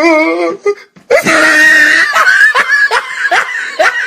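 A man laughing hysterically. It starts as a wavering, shaky cry, breaks off briefly about a second in, then bursts into a loud shrieking laugh. The laugh turns into a run of short, rising whoops.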